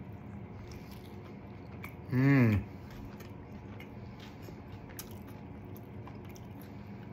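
A man biting and chewing a mouthful of chicken street taco, with faint wet mouth clicks. About two seconds in he gives one short, loud hummed 'mmm' of enjoyment that falls in pitch.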